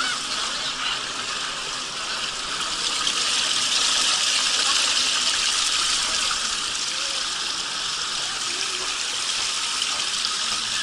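Water rushing steadily down the lanes of a multi-lane racing water slide, growing louder for a few seconds in the middle.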